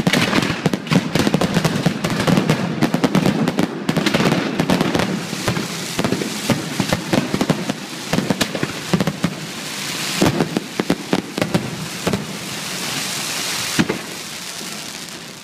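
Fireworks display: a fast, dense string of bangs and crackles that thins out after about ten seconds into a hissing crackle, with one last sharp bang near the end.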